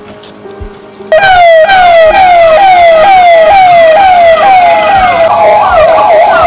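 Electronic emergency-vehicle siren that starts suddenly about a second in and is loud: a quickly repeating falling sweep, about two a second, that switches near the end to a faster up-and-down warble.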